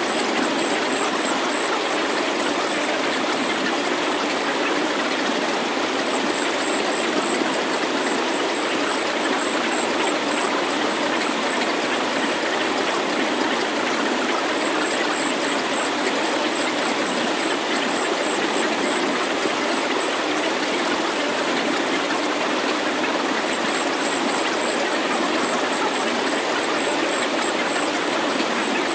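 Synthesized healing-meditation sound: a steady, even rushing hiss with almost no bass, and a faint pulsing high tone that comes and goes above it.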